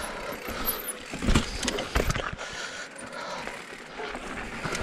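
Cube Stereo 170 Race full-suspension mountain bike rolling down a rocky dirt trail: tyre noise and a steady rattle of chain and bike parts, with a few sharper knocks as the wheels hit rocks and roots, the loudest about a second in and about two seconds in.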